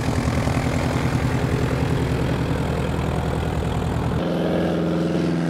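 Light bush plane's piston engine and propeller running as it taxis on a gravel airstrip, a loud, steady pulsing drone; the engine note changes about four seconds in.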